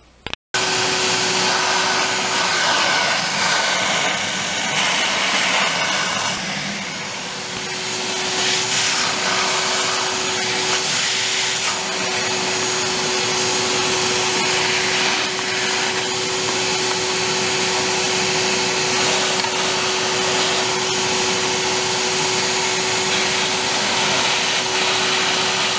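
Vacuum cleaner switching on and running steadily with a constant hum, its hose nozzle down in the bare cylinder of an old Suzuki dirt bike, sucking out the dirt and debris that clog the exhaust port and kept locking the piston.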